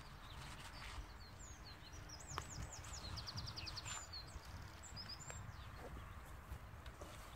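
A small songbird singing faintly: swooping whistled notes and a quick trill in the middle, over a steady low background rumble, with a few faint clicks.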